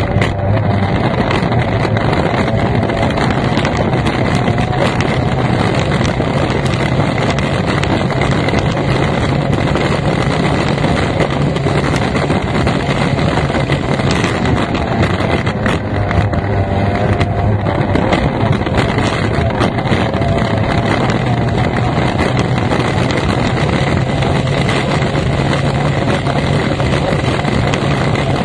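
F1 tunnel-hull race boat's outboard engine running hard at speed, its pitch shifting slightly with throttle, with wind noise on the microphone.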